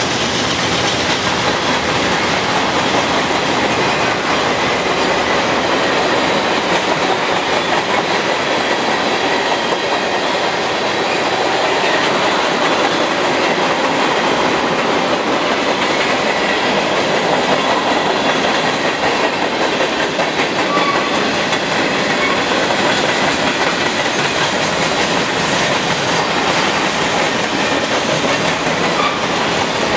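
Freight train cars rolling steadily past at close range, a continuous rumble and rattle of wheels on rail.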